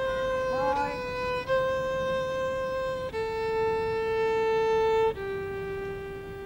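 Solo violin playing slow, long held notes that step downward in pitch, the last note quieter and fading.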